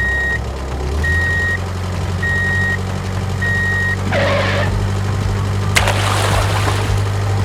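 Vehicle reversing alarm: four steady beeps about a second apart over a steady low engine hum. About four seconds in comes a short noisy burst, then near six seconds a sharp click followed by a hissing rush lasting about a second.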